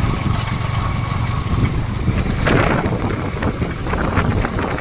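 Yamaha R15 V3 motorcycle riding along, its engine running steadily beneath heavy wind noise on the microphone, with a louder gust about halfway through.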